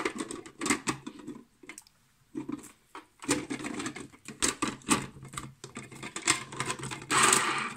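Clear plastic parts of an Andrew James electric mandoline slicer being handled and fitted together: irregular clicks and knocks, with a short scrape near the end.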